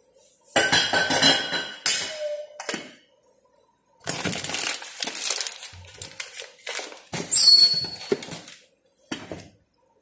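Metal kitchenware being handled: a small stainless steel pot and its lid clattering and clinking in several separate bursts, one with a bright metallic ring about seven seconds in.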